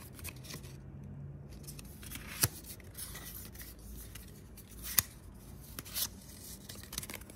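Yu-Gi-Oh trading cards being handled and slid past one another in the hands, with two sharp card snaps about two and a half and five seconds in.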